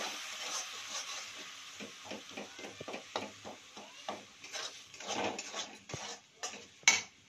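A spoon or spatula stirring and scraping masala paste in a cooking pan, knocking against the pan about three or four times a second. A fading sizzle is heard from the masala frying with water just added, and there is one sharper clack near the end.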